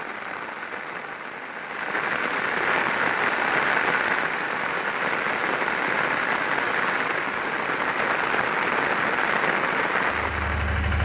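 Heavy rain pouring down steadily onto the ground and vegetation, growing louder about two seconds in. A low engine hum comes in near the end.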